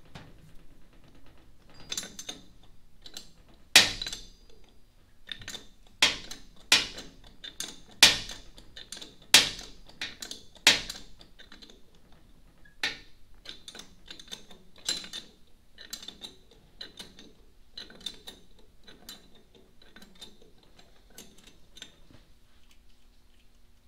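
A wrench clinking and clicking on the nylock nuts of a magnesium transmission case as the nuts are backed off. About six sharp metallic knocks come in the first half, followed by many lighter, quicker clicks.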